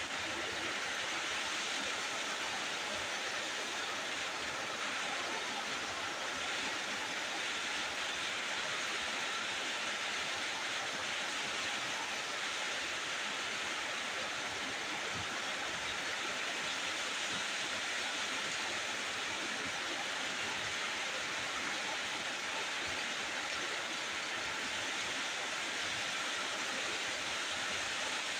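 Food frying in a pan: a steady sizzle that holds at one level throughout.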